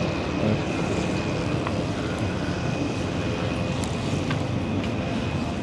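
A city bus engine and road traffic running steadily: a continuous low rumble with a thin, steady high whine over it.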